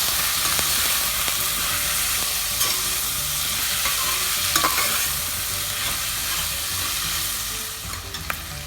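Green peas with onion and ginger-garlic-chilli paste sizzling in ghee and oil in a pressure cooker, stirred with a spatula that clicks against the pan now and then. The sizzle eases a little near the end.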